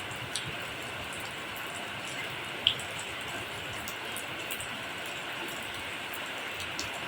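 Steady rainfall, an even hiss with scattered drops ticking, and one sharper, louder drop hit a little over a third of the way in.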